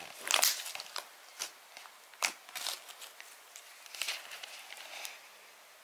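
Slime being kneaded and squeezed by hand, giving scattered soft squishes and clicks, as magical clay is worked into glue slime to turn it into butter slime.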